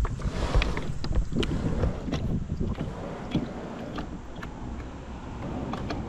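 Wind buffeting the microphone in a low, uneven rumble, with scattered knocks from a kayak and paddle. The wind is strongest about the first second and eases after.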